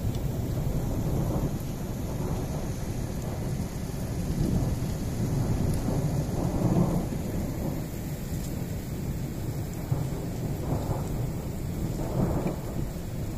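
Thunderstorm: steady rain with rolling thunder rumbling in slow swells, loudest about halfway through and twice more near the end.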